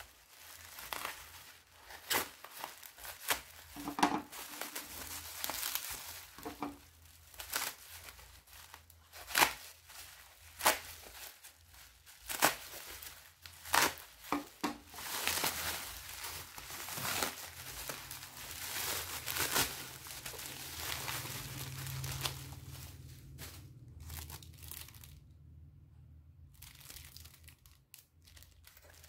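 Plastic bubble wrap crinkling and tearing as it is cut with scissors and pulled off a packaged phone case, with many sharp crackles. The crackling is dense for about the first fifteen seconds and then thins out.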